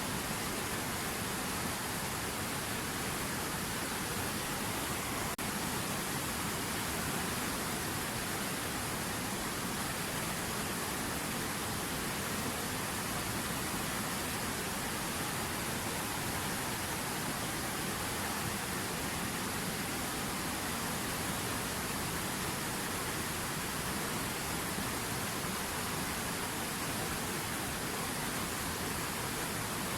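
River water running, a steady rushing with no change.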